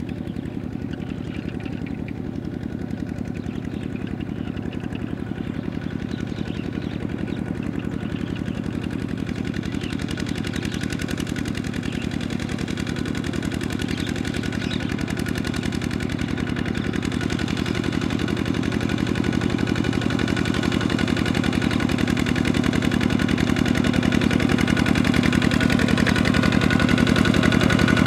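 Single-cylinder diesel engine of a Kubota walk-behind two-wheel tractor running steadily as it works through a muddy paddy field, growing gradually louder as the tractor comes closer.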